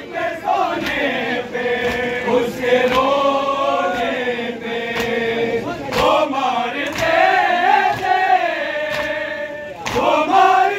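Crowd of men chanting a noha (Shia lament) together, with regular sharp slaps of hands beating on chests (matam) keeping time.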